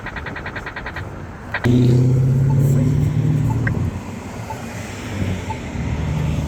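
A fast run of high ticks in the first second. A car then passes with a loud, low engine hum for about two seconds. Behind it, a Polara accessible crosswalk push button's locator tone ticks softly about once a second.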